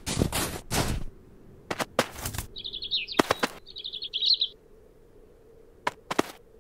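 Cartoon foley: a cat's paws scuffing and scrabbling in snow in several quick strokes, then a small bird's rapid high twittering in two bursts, with a flutter of wings as it lands. A couple of short taps near the end.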